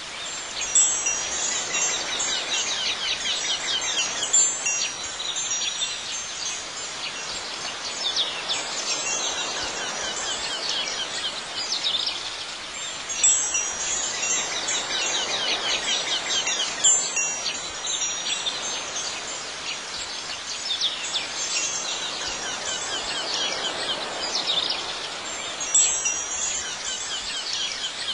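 Wind chimes ringing in clusters every few seconds over a soft, steady background wash, a relaxing ambient soundtrack.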